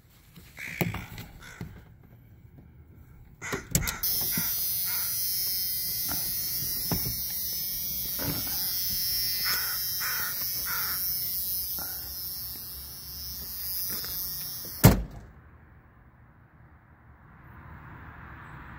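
A crow cawing now and then, with a steady hiss from about four seconds in that ends in a sharp knock about fifteen seconds in.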